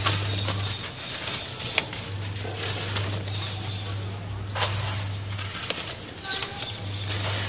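Wet sand-and-cement lumps crumbled and squeezed by hand over a plastic tub: gritty crackling and crunching, with crumbs and powder pattering down into the tub and sharp clicks as pieces break.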